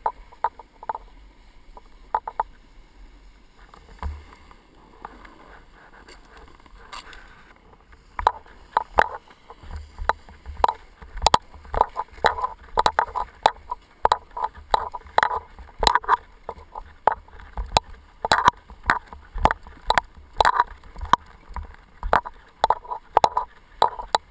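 Rhythmic scraping crunches on packed snow, about two to three a second, from a rider pushing along the flat toward a chairlift. The crunches are sparse at first and become steady and loud from about a third of the way in.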